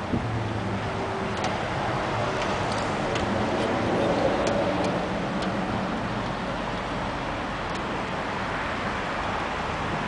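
Faint, light clicks from hands working at a car's rear door latch and handle fixture, scattered through the first half, over a steady background rush.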